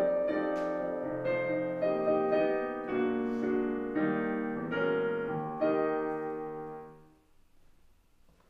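Piano playing the closing chords of a slow piece, the last chord fading out about seven seconds in, leaving near silence.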